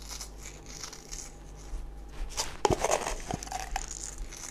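Soft rustling and crackling of salt being pinched from a small plastic tub and rubbed between the fingers over a bowl of flour, with a few light clicks a little past the middle.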